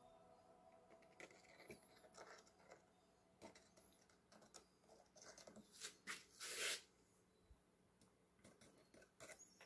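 Faint, scattered scrapes and taps of a small trowel working wet concrete into a miniature foundation form, with one louder scrape about six and a half seconds in.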